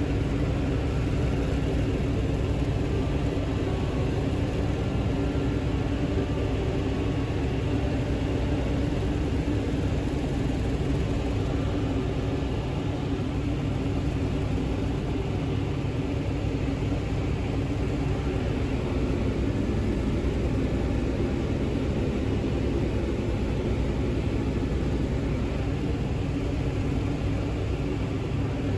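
Helicopter engine and rotor running steadily, heard from inside the cabin in flight: an unchanging loud drone with several low, steady hums.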